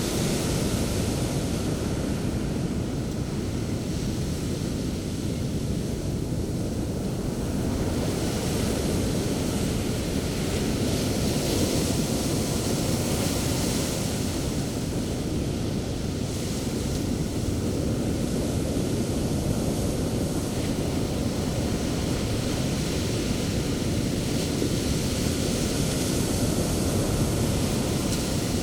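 Sea waves breaking and washing onto a beach in steady surf, the rush of foam swelling every few seconds, with some wind on the microphone.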